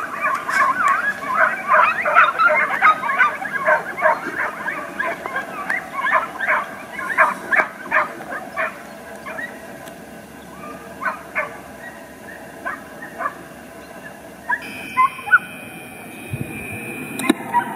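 A pack of hunting dogs baying and yelping in quick, overlapping calls while driving a wild boar through scrub. The calls are densest in the first half and thin out to scattered single yelps later.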